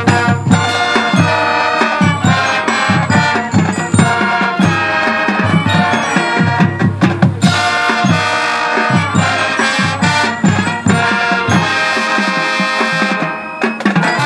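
High school marching band playing a halftime show: brass carrying the tune over a steady beat of marching drums. The band drops in volume briefly near the end.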